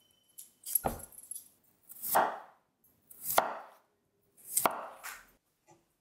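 Kitchen knife cutting raw potatoes on a cutting board: four separate cuts, a little over a second apart.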